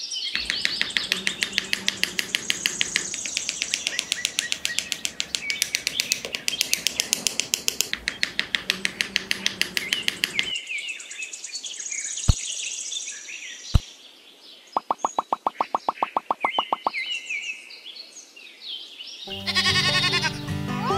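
Fast, even chirping trill of birds, about eight chirps a second, which cuts off about halfway through. Two sharp taps follow, then another short fast trill, and music comes in near the end.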